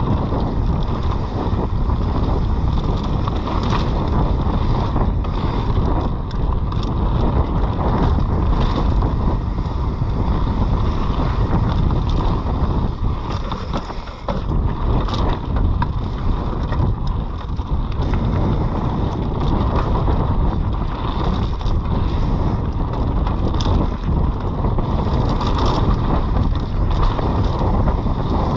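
Wind rushing over the camera microphone as a mountain bike descends a trail, with the bike rattling and clattering over rough ground.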